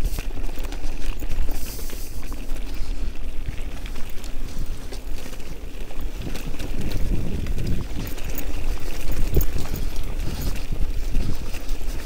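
Wind buffeting the microphone with a steady low rumble while a bicycle is ridden, with scattered small knocks and rattles throughout.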